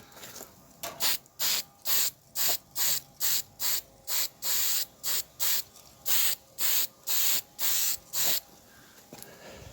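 Red oxide primer being sprayed onto an engine cowling in about sixteen short hissing bursts, roughly two a second, stopping about a second before the end.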